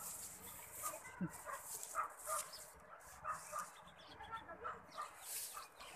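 Faint, short animal calls repeating at irregular intervals over a steady high hiss.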